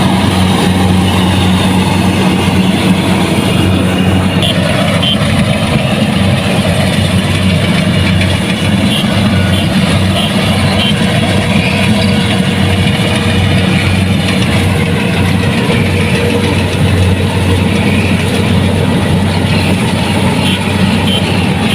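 Kubota DC-70 Plus combine harvester running steadily, its engine and machinery making a loud, even mechanical din with a low hum underneath.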